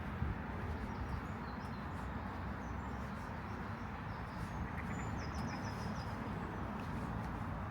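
Small birds chirping over a steady background rumble, with a short, rapid trill of high notes about five seconds in.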